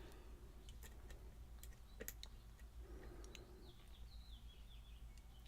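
Faint, scattered clicks and light scraping of lock picks working the pins inside a challenge lock.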